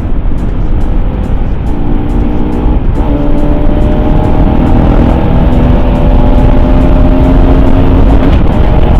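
Yamaha R15M's single-cylinder engine through an SC Project exhaust, pulling on the move with its note rising slowly through the gears, with a short break at each shift. Heavy wind rumble on the helmet microphone sits under it.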